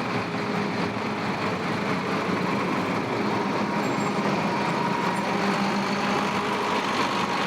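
2012 Case IH 8230 Axial-Flow combine running steadily as it is driven: an even engine and machine hum with a faint steady tone.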